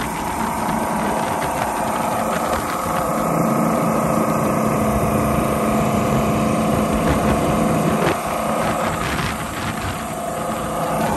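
The 1940 Boyce & Sons race boat's V8 engine running steadily under way, with a few steady engine tones over a rushing noise of wind and water.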